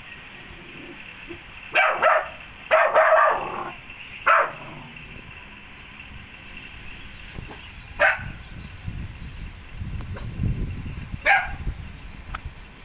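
A dog barking in short bursts: several quick barks about two to three seconds in, another near four seconds, then single barks near eight and eleven seconds.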